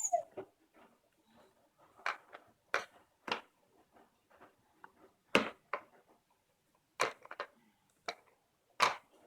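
Scattered sharp clicks and knocks of hard plastic toy parts being handled, about eight over several seconds, the loudest about halfway through.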